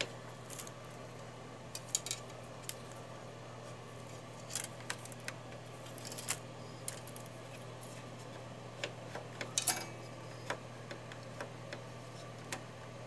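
Scattered small clicks and taps of plastic parts being handled by hand at an Epson L1300 inkjet printer's capping station and wiper blade, over a steady low hum. The sharpest click comes about three quarters of the way through.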